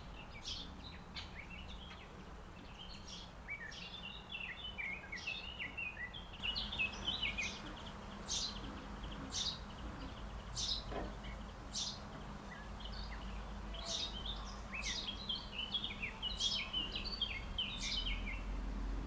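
Small songbirds singing: many quick high chirps and short warbled phrases, over a low steady background rumble.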